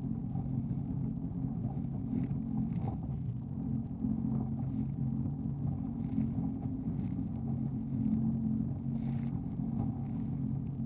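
Jet ski engine running steadily, with irregular splashes of water over the hull every second or two on rough water.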